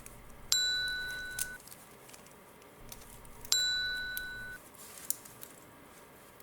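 Two identical bright metallic dings about three seconds apart, each struck sharply and ringing out for about a second, with a few faint light clicks between them.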